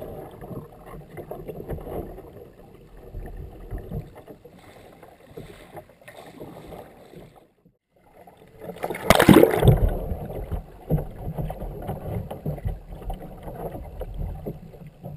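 Water splashing and rushing over a kayak's bow-mounted camera as the bow dips under the surface. The sound breaks off briefly, then a big splash comes about nine seconds in, followed by more churning water.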